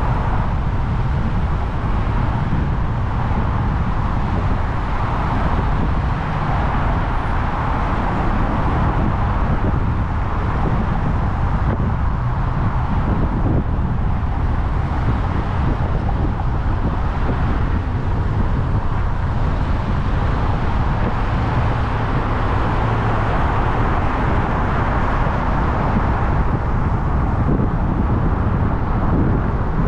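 A car driving along: a steady low rumble of engine and tyres on the road with a hiss over it.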